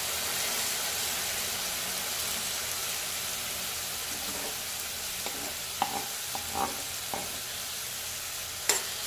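Sliced onion and freshly added chopped tomato sizzling in hot oil in a stainless steel frying pan: a steady hiss, with a few short pops and ticks in the second half.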